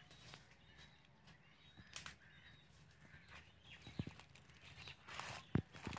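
Footsteps through leafy undergrowth, leaves and stems brushing and rustling, with a few heavier footfalls in the second half.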